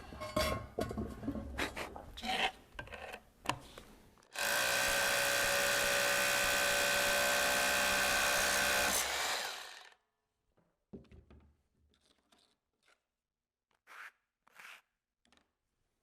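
Hammer drill boring a pilot hole into a limestone column top for a large-diameter Tapcon concrete screw: it runs steadily at full speed for about five seconds, starting about four seconds in, then winds down. Before it, handling clatter and knocks; after it, a few faint taps.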